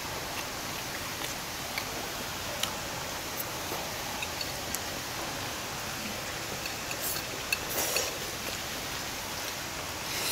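A steady hiss of background noise with a few faint, scattered clicks of forks and spoons on plates, and a short cluster of small eating noises about seven to eight seconds in, as noodles and fried rice are eaten.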